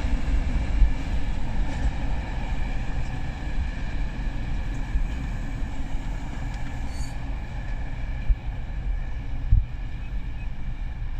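Freight train of autoballaster hopper wagons rolling away on the rails, its wheel and rail noise fading as it draws off into the distance, over a steady low rumble.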